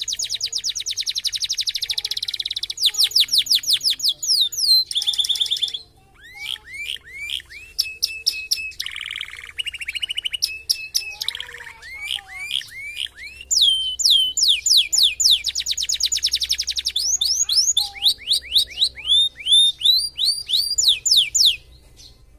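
Domestic canary singing a long, varied song, the lavish 'isian' kind filled with learned phrases. It mixes fast rattling trills with runs of quick down-slurred whistles, with a short break about six seconds in.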